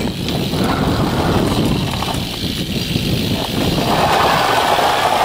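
Steady, loud, rough rolling and scraping of a BMX bike's wheels and pegs on a concrete skatepark ledge, growing brighter and harsher about four seconds in.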